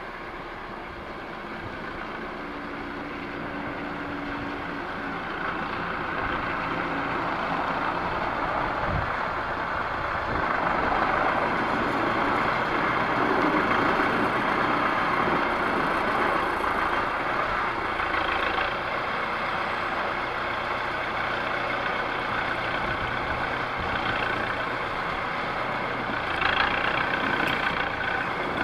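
Tractor engine running as the tractor drives up with a round hay bale on its front loader, growing louder as it approaches.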